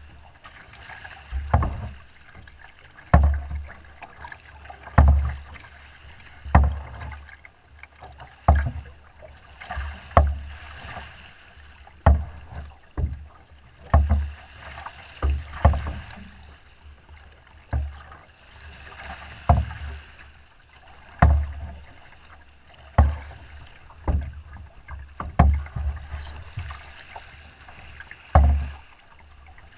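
Choppy water slapping against the hull of a small boat under way, a hollow thump about every one and a half to two seconds with splashing and rushing water between.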